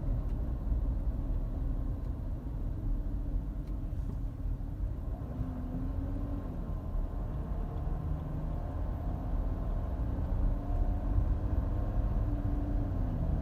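Volkswagen Touareg being driven, with steady engine and road rumble and a few faint tones that drift up and down. The intermittent whining noise under investigation is not clearly present.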